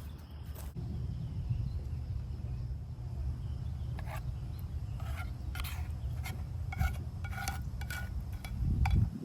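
Steady low outdoor rumble with a run of light clicks and clinks starting about four seconds in; it all cuts off abruptly near the end.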